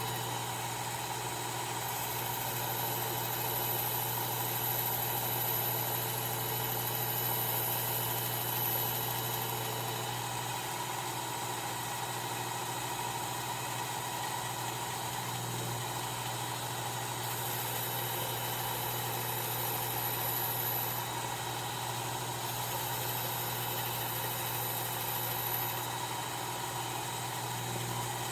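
Work Sharp electric belt sharpener running steadily with a fine 1000-grit belt while a knife edge is refined on it. A high hiss comes and goes several times over the steady motor hum as the blade is passed across the belt.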